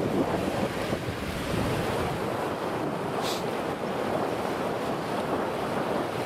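Wind buffeting the microphone over the steady wash of waves on the water: an even, unpitched rush with no distinct engine note.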